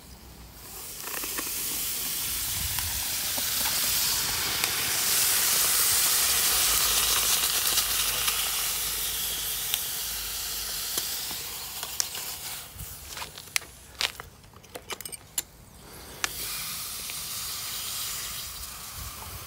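Hot freshly cast copper and its moulds hissing and sizzling on a block of ice as the ice flashes to steam, loudest in the middle, then fading. A run of sharp cracks and clicks follows, then the hiss picks up again.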